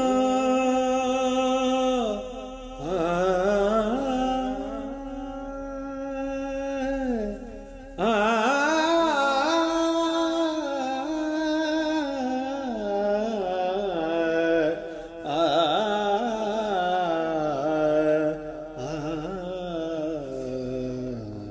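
Slow melodic outro music: a single line of long held, wavering notes that glide from one pitch to the next.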